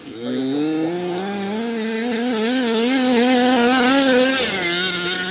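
Small two-stroke petrol engine of a 1/5-scale RC car running at high revs. Its pitch rises at the start, then wavers up and down with the throttle, and drops back to a lower note about four seconds in.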